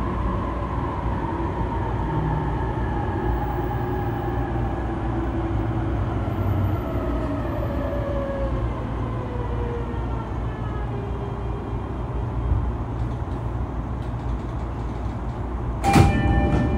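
Running sound aboard a JR East E233-3000 series motor car with a Hitachi IGBT-VVVF inverter and MT75 traction motors. The inverter whine falls steadily in pitch over the rumble of the wheels as the train brakes. Near the end a sudden loud sound sets in, with a few steady held tones.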